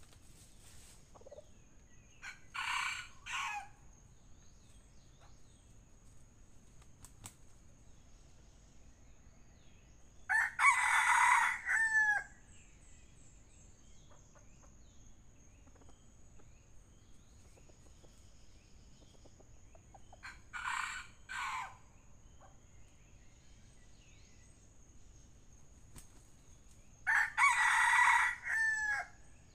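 Red junglefowl roosters crowing four times, short crows coming about every eight seconds. The crows alternate between a fainter and a louder, longer one, with the louder ones ending in a quick falling tail.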